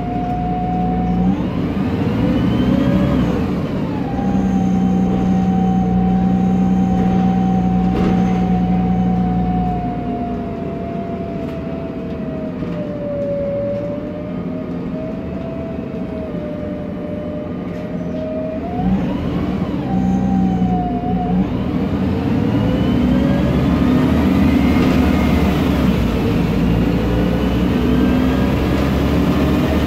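A MAN Lion's Classic city bus heard from inside the cabin. Its MAN E2876 CNG engine runs under a whine from the Voith DIWA 864.3 automatic gearbox. The whine rises in pitch as the bus accelerates about two seconds in, again about two-thirds of the way through and near the end, and holds fairly steady in between.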